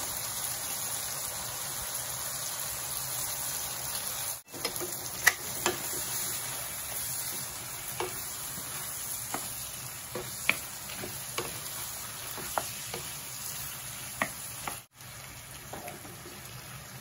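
Shrimp sizzling in garlic butter in a nonstick frying pan, a steady hiss, with scattered sharp clicks as a wooden spatula and tongs turn them against the pan. The sound cuts out briefly twice, about four and fifteen seconds in.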